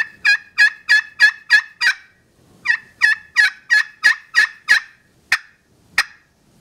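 Glass-over-cherry-soundboard friction turkey call in a walnut pot, played with a striker. It gives two runs of hen yelps, about seven notes each at roughly three a second, each note breaking from low to high. The tone is fairly clear but still has some rasp. Near the end come a couple of sharp, short cutts.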